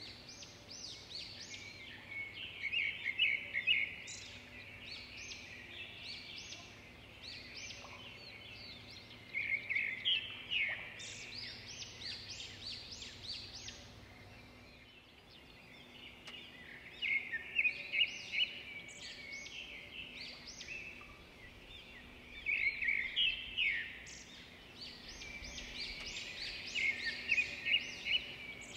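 Small birds chirping and twittering in quick phrases of rapid notes that come and go every few seconds, over a faint steady hum; the sound drops out briefly about halfway through.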